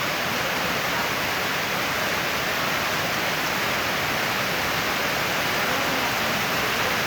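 Heavy rain falling in a steady downpour, a loud, even hiss.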